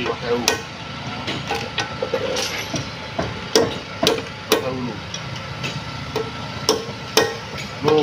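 Hand hammer striking a small steel tool held on the valve guides of a Fuso 6D16 diesel's cast-iron cylinder head: about a dozen sharp metallic taps at an uneven pace, some ringing briefly.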